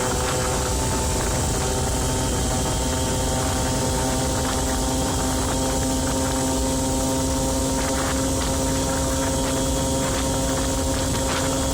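Aprilia Ditech scooter's 50cc two-stroke engine, with new crankshaft bearings, running steadily on a test ride over a steady hiss. Its pitch climbs slightly about two seconds in and then holds.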